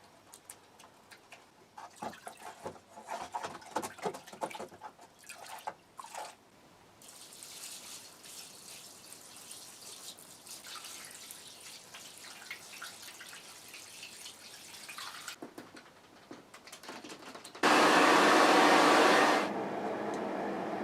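A mechanical keyboard being sloshed and scrubbed in a tub of water-and-isopropyl-alcohol solution: splashing with plastic clicks and knocks, then several seconds of rushing, swishing water. Near the end an electric blower starts with a sudden loud rush of air that settles after a second and a half into a lower steady blowing.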